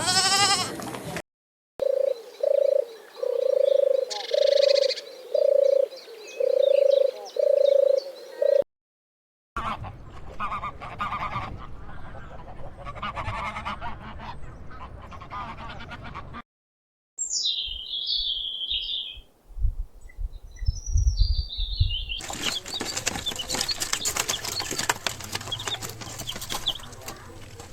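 Several short animal-call clips back to back, split by brief silences. First comes a steady series of about seven short calls at one pitch. Later there are high chirps that glide up and down, and near the end a dense run of rapid clicking and noise.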